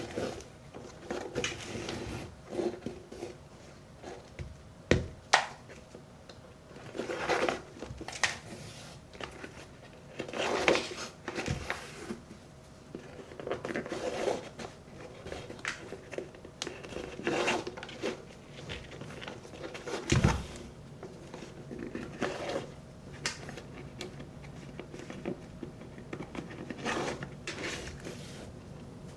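Leather shoes being handled and laced: irregular rustling and scraping of laces and leather, with a few sharp knocks as a shoe is set down or bumped.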